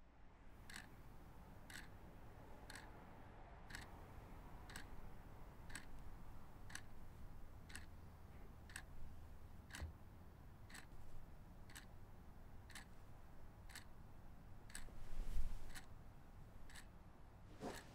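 A clock ticking steadily, about once a second, over a low hum. A brief low rumble swells up about fifteen seconds in and is the loudest moment.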